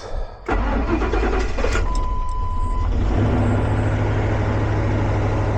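Ford E350 van engine cranking on its freshly installed battery and catching in about one crank, then settling into a steady idle. During the cranking a steady beep sounds for about a second.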